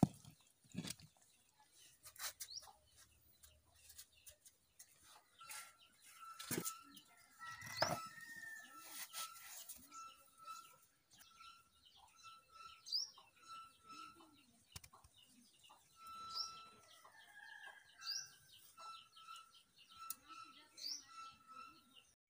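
Birds chirping and calling, with short rising chirps every second or two over a steady pulsing note, and a few sharp clicks and knocks about six and eight seconds in.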